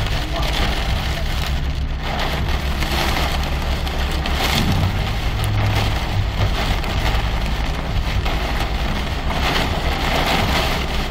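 Heavy storm rain pelting a car's roof and windows, heard from inside the cabin, with a steady low hum from the car underneath.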